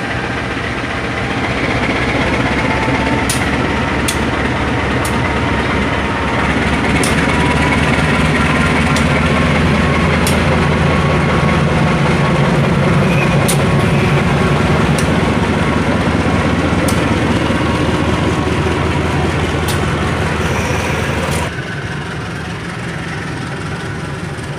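Diesel-electric locomotive CC 203 01 06 running its engine loudly as it pulls slowly past close by during a shunting move, with sharp clicks every second or so. About 21 seconds in, the engine sound drops away and the passenger coaches roll past more quietly.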